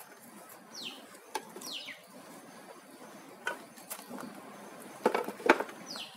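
Wooden beehive box being set down on its bottom board and stand: a few hard knocks, the loudest about five and a half seconds in. A bird gives short falling whistles twice in the first two seconds.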